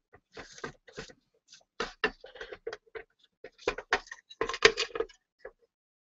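A cloth rubbed over the inside of a lacquered bowl during polishing, in short, irregular scuffing strokes that come in uneven clusters.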